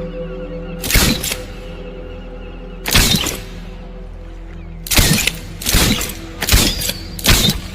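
Wristbow firing sound effects: six sharp shots, one about a second in, one at three seconds, then four in quicker succession in the second half. Under them is a steady music drone.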